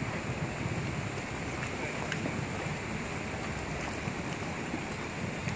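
Steady outdoor background noise, a low even rush like wind on the microphone, with faint distant voices.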